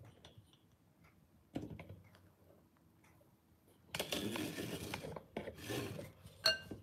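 Handling noise from a phone being picked up and moved: rubbing and scraping against the microphone, with a short ringing clink near the end.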